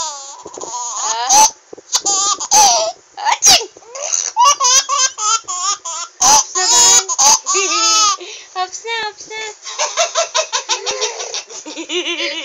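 A baby laughing hard in repeated fits of giggles and belly laughs, broken by a few short, sharp bursts of sound.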